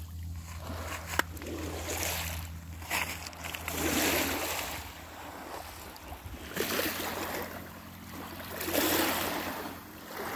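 Small lake waves lapping on a pebble and sand shoreline, swelling and fading about every two to three seconds. A low steady hum lies under the first half.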